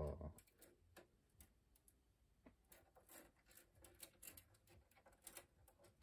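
Faint, scattered clicks and taps of a cockatiel's feet and beak on a plastic toy dollhouse, coming more often from about halfway through.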